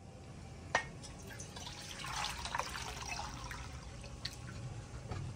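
Water pouring from a tilted clay water pot into a metal bowl, splashing most strongly in the middle, with a sharp knock about a second in and a few small clicks later.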